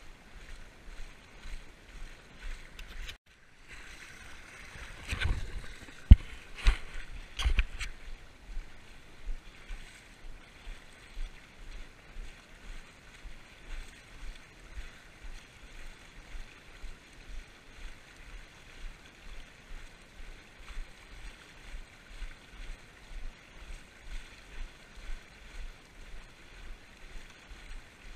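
A runner's footfalls on a wet path, an even thud about two to three times a second, under a steady hiss of wind or running water. A few louder knocks come between about five and eight seconds in.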